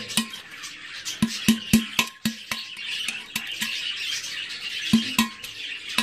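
Pointed tool chipping and scraping at the rim of a hole in an unglazed terracotta clay pot: irregular sharp clicks, several close together, each with a short ring from the hollow pot body.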